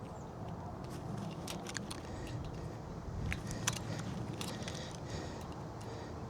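Scattered light clicks and rattles of wire fence being worked with pliers, the sharpest about two-thirds of the way through, over a steady low rumble.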